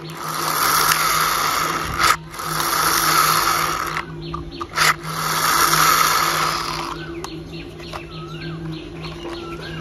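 Plastic toy car's pull-string gear motor whirring three times, each whirr lasting about two seconds with a sharp click between them, then quieter with faint chirps over a steady low hum.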